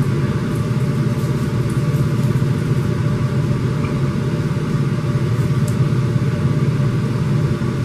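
A steady low mechanical hum that runs evenly throughout, engine-like in character.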